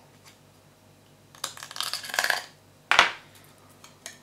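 A small metal hand tool scraping excess plastic off a 3D-printed part for about a second, then one sharp clack as the metal tool is set down on the wooden bench.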